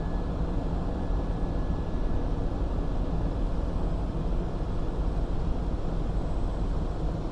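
Daikin rooftop HVAC package unit running: a steady mechanical rush, heaviest in the low end, with no changes in pitch or level.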